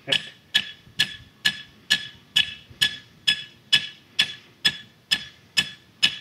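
Hammer blows driving a metal earth (grounding) rod into the ground, a steady run of about two sharp metallic strikes a second, each ringing briefly.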